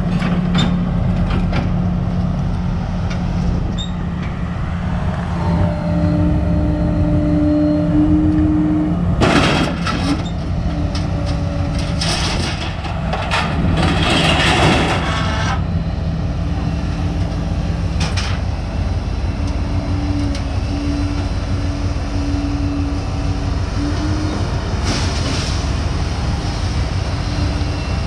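A vehicle engine running steadily, with loud rattling clanks about ten seconds in and again around twelve and fourteen seconds.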